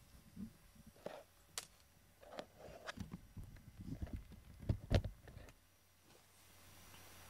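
Close, irregular rustling and soft bumps that grow to their loudest about five seconds in, then stop at about five and a half seconds.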